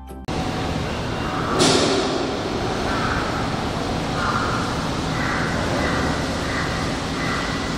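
Harbour ambience: a steady low machine rumble, a sharp loud hiss-like crash about one and a half seconds in, and birds calling in short repeated bursts through the rest.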